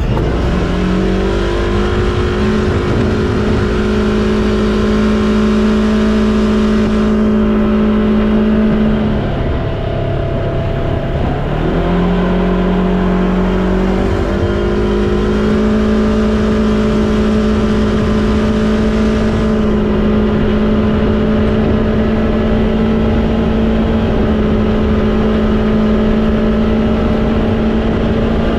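Vehicle engine running at steady speed under load, its pitch rising about a second in. It eases off and drops in pitch around the middle, then picks up again and holds steady.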